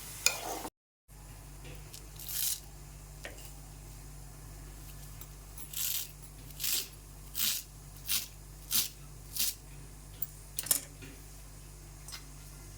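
Spoon working through chicken and tomato pieces in a pan: short scraping strokes, bunched at about one every 0.7 s in the middle stretch, over a steady low hum.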